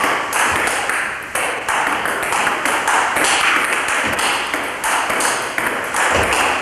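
Table-tennis ball clicking off the bats and the table in quick succession during play, several hits a second.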